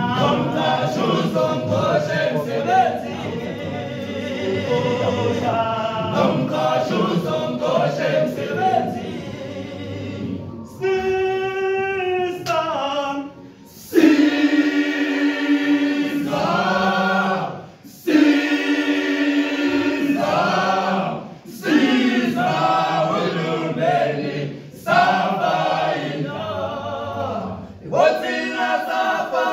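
Male a cappella choir singing in close harmony, in the isicathamiya style. About eleven seconds in a single voice slides down, then the full choir comes in loudly on long held chords, with short breaks between phrases.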